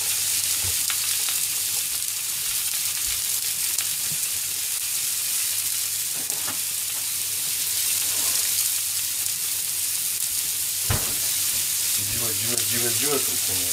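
Ground meat frying in oil and garlic in a frying pan, a steady sizzle, beside a pan of spaghetti at the boil. One sharp knock about eleven seconds in.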